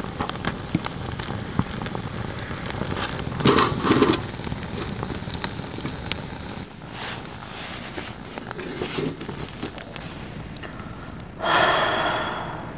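Damp split firewood burning in a small steel fire box on liquid fire starter, crackling with many scattered sharp pops; the wood is wet and moisture is bubbling out of its ends as it heats. Near the end a louder sound with a steady pitch lasts about a second.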